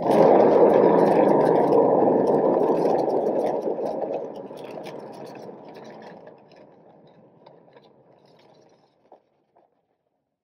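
A paint-pouring spinner turning a freshly poured canvas to spin out the paint. It makes a steady rumble that starts suddenly, then fades away over several seconds as the spin slows to a stop.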